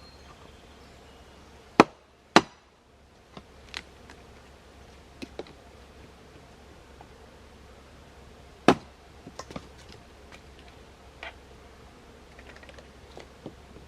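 A blade chopping wood for kindling: three hard strikes, two close together about two seconds in and one near nine seconds, with lighter knocks and taps between.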